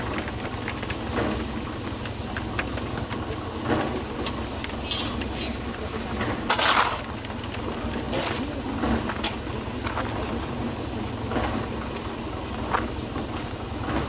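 A steel shovel scraping up concrete mix, with gritty knocks and scrapes as the mix is loaded into an iron pan and tipped down a tin chute; the loudest is one scrape a little past halfway. A steady low machine rumble runs underneath.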